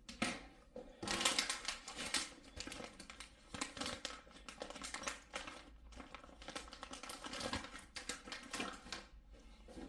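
Dense, irregular run of small clicks and rattles from a precision screwdriver set being handled while a driver for a six-point screw is picked out.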